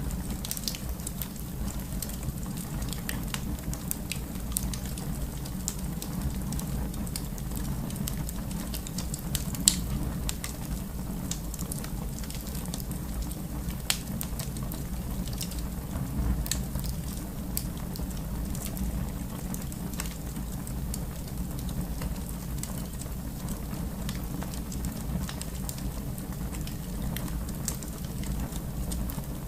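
Wood fire burning in a fireplace: a steady low rumble with scattered crackles and pops, a sharper pop about ten seconds in and another near fourteen seconds.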